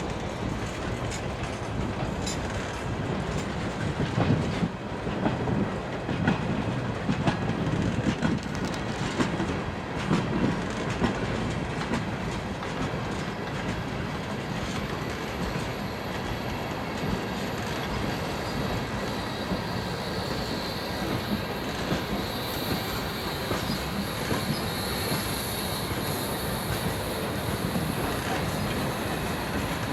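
Freight train cars rolling slowly, their wheels clicking over rail joints. A high, steady squeal of wheels on the rails comes in past the middle.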